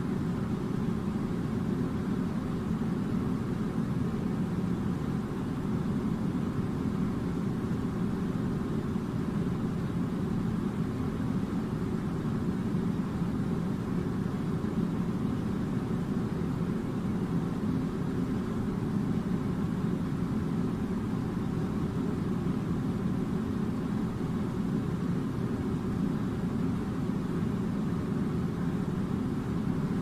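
Steady low mechanical drone, unchanging throughout, like machinery or an air-handling unit running continuously.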